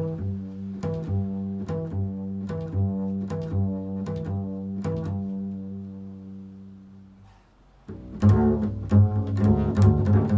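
Solo double bass played in a free improvisation: a slow line of low notes, each changing after about half a second to a second, that dies away about three-quarters of the way through. A louder, busier run of notes starts shortly after and carries on.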